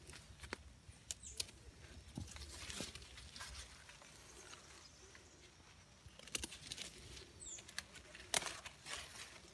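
Okra plants rustling as pods are picked by hand, with scattered sharp clicks and snaps; the loudest snap comes about eight seconds in.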